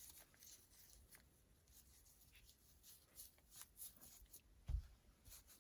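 Near silence with faint rustling and small clicks from plush finger puppets being handled on the fingers, and one soft low thump near the end.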